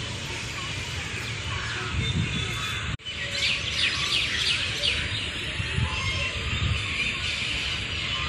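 Birds chirping in a busy chorus of quick falling chirps over a low rumble. The sound drops out for an instant about three seconds in, and the chirping is thickest just after.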